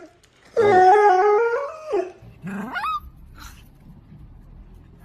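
A dog howling in a drawn-out, wavering tone for over a second, then giving a short whine that rises in pitch.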